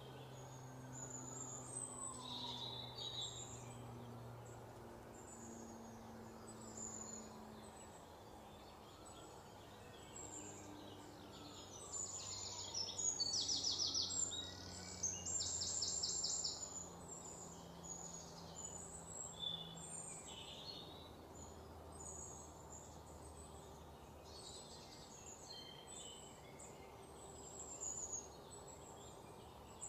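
Songbirds chirping and trilling, with the loudest rapid trills about halfway through, over a low steady hum.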